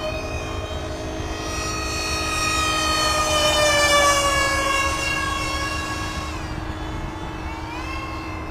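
Whine of the twin electric ducted fans of a BlitzRCWorks SR-71 Blackbird RC jet in flight. The whine swells to its loudest about four seconds in as the jet makes a low pass, dropping in pitch as it goes by, then rises in pitch again near the end.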